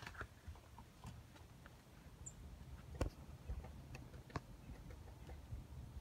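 Faint, irregular clicks and knocks, the two sharpest about three and four and a half seconds in, over a low rumble.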